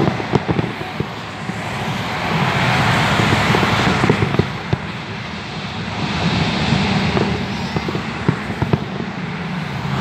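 Distant aerial fireworks bursting: an irregular, rapid run of bangs and crackles over a continuous background noise that swells and fades.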